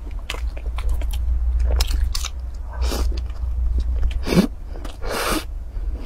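Close-miked mouth sounds: wet chewing clicks from eating soft bread, then two or three louder sips and slurps from a drink in a glass mug, with swallowing, in the second half. A steady low hum runs underneath.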